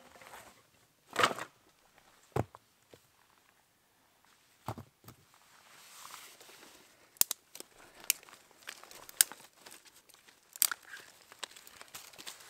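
Firewood and camp gear being set down and handled on leaf litter. There are a few separate knocks and rustles, then sharp clicks and crinkling as the fire is prepared.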